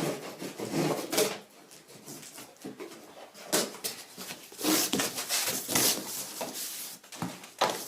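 Parcel packaging being handled and opened: irregular rustling and crinkling in bursts, busiest a few seconds in.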